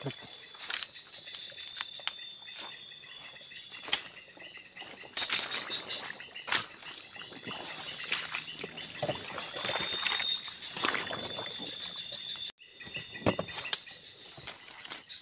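Night insect chorus, a steady high-pitched trill, over irregular rustling and crunching of footsteps pushing through undergrowth. The sound cuts out for an instant about twelve and a half seconds in.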